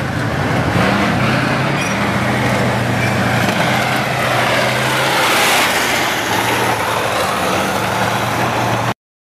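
T-72 tanks driving past: the V12 diesel engines running with the noise of the tracks rolling, cutting off abruptly near the end.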